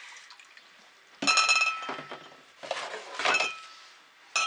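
Hard objects clinking together with a short ringing tone, three times: about a second in, near three seconds, and right at the end.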